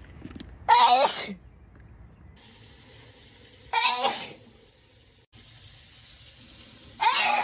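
A sneezing fit: three loud sneezes about three seconds apart, each a voiced "achoo".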